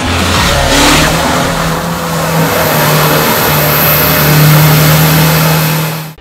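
Off-road competition 4x4's engine revving hard and held at high, steady revs, cutting off suddenly near the end.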